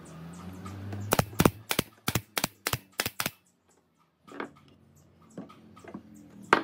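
Pneumatic nail gun firing a quick series of about nine sharp shots, driving nails through pallet-wood slats into a pine frame. Softer knocks of the boards being set in place follow, with one more sharp shot near the end.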